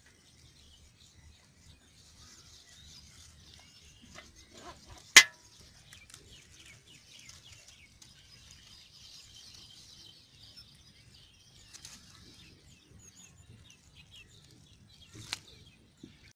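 Faint birds chirping, with the low rustle of a mesh fishing net being handled as fish are sorted by hand. A sharp click about five seconds in, and a smaller one near the end.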